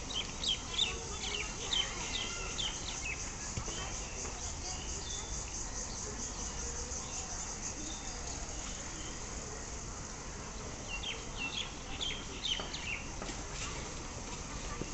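Insects trilling steadily in a high, rapid pulse, with birds giving short downward-sweeping chirps in clusters during the first few seconds and again about eleven seconds in.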